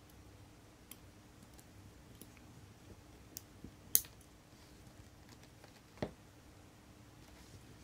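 A handful of small, sharp clicks and taps from metal watchmaker's tools handling the parts of a chronograph watch movement, the two loudest about four and six seconds in.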